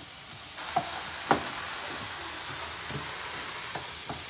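Diced chicken, peppers and onions sizzling in a frying pan while a spatula stirs them, with a few sharp knocks of the spatula against the pan. The sizzle gets louder about half a second in, and the loudest knock comes just over a second in.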